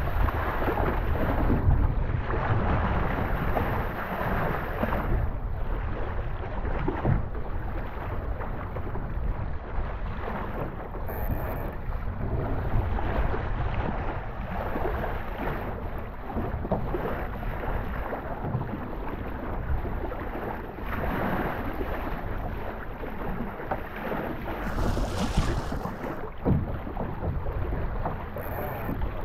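Wind buffeting the microphone in uneven gusts over a rush of water along a boat under way, with a short, sharper hiss near the end.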